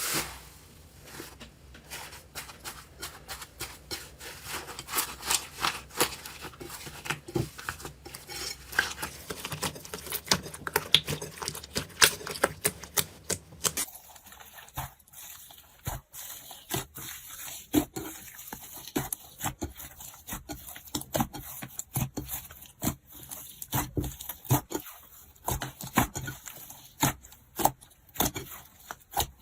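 Slime being squeezed, poked and stretched by hand, making a steady stream of sticky clicks, crackles and small pops. The texture of the sound changes about halfway through.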